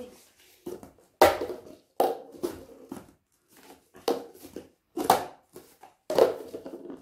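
Plastic party cups being stacked and set down on a glass tabletop: a string of sharp, hollow clacks, the loudest coming roughly once a second.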